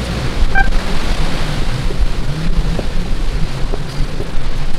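Wind blowing across the microphone: a steady rushing noise with a heavy low rumble.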